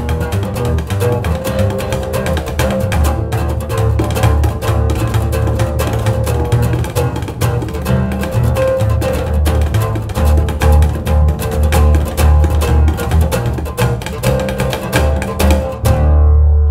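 Double bass played pizzicato together with an oud, fast plucked notes in a driving rhythm over deep bass notes. About a second before the end the oud and the higher notes stop at once, leaving a last low bass note ringing as the piece ends.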